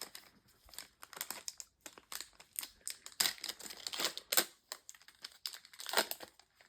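Crinkling and rustling of trading cards and their packaging being handled, in quick irregular bursts.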